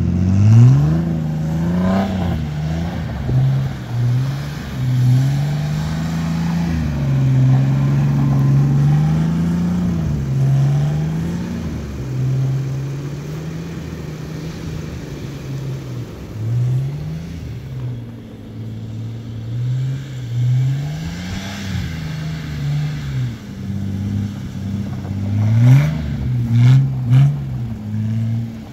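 Jeep Wrangler TJ engine revving up and down over and over as the Jeep spins donuts with its wheels slipping in snow, with a run of several quick, sharp revs near the end.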